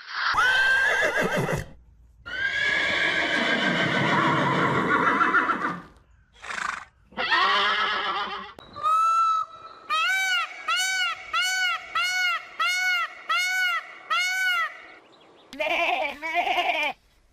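Farm animals calling, several separate calls one after another, among them a long noisy call and, about ten seconds in, a run of about eight evenly spaced rising-and-falling calls.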